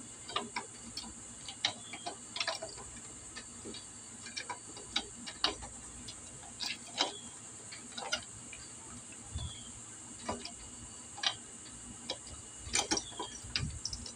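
Irregular light metallic clicks and taps as a camshaft is handled and slid into a GY6 scooter engine's cylinder head, over a faint steady high hiss.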